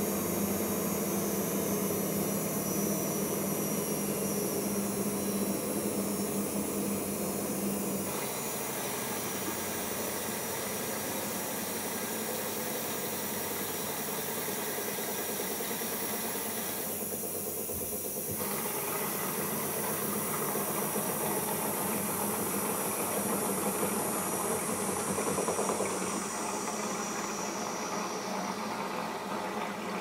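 Siemens iQ washing machine at the start of its final rinse, water running in with a steady hiss. A low hum stops about eight seconds in.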